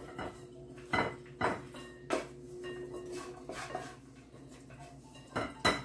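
Wooden spatula knocking and scraping against a frying pan as stir-fried anchovies are pushed out into a bowl: a handful of separate knocks and clinks, the loudest two close together near the end.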